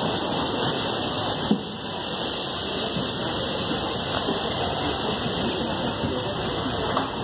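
Steady hiss while passengers board a metro train, with a single knock about a second and a half in.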